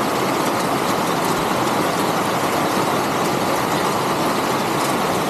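Heavy rain falling hard and steadily, a dense, even hiss with no let-up.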